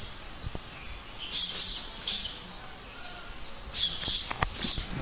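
Muay Thai fighters' sharp hissing exhales with each strike, in two sets of three quick bursts that match a jab, jab, elbow combination. A few glove thuds land in the second set.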